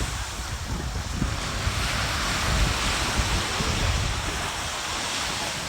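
Ocean surf washing onto the beach, with wind buffeting the microphone in low rumbles.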